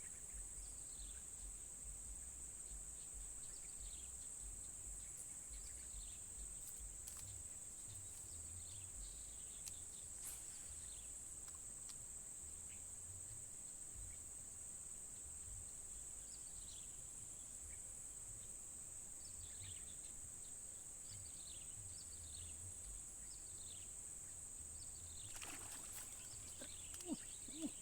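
Steady high-pitched drone of insects such as crickets or cicadas, with short falling chirps scattered through it. Near the end there are a few sharp knocks, two of them louder.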